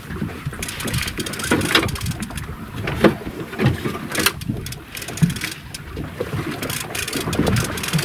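Wind buffeting the microphone on a small boat, with scattered irregular knocks and clicks from gear and the hull.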